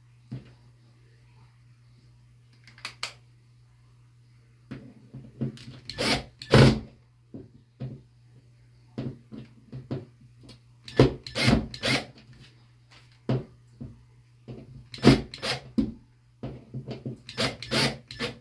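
Irregular short knocks and clicks as a Hyper Tough cordless drill is worked against a small metal towel-bar bracket on the wall, in scattered clusters, over a low steady hum.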